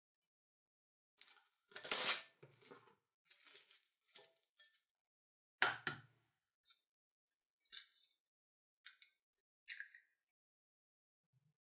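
Kitchen handling sounds of baking preparation: a run of short rustles, scrapes and clicks, the loudest about two and six seconds in.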